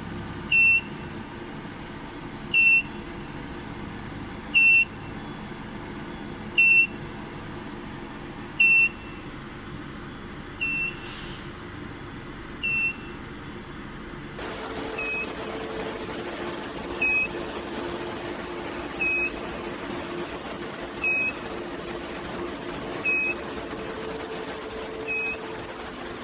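Electronic beeper on an induction preheat heater giving a short high beep about every two seconds, over the steady hum of the running machine. A thin high whine is also heard in the first half.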